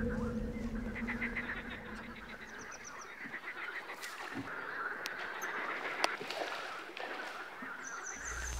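Waterfowl calling in runs of quick repeated notes, with short high chirps from small birds and a sharp click about six seconds in.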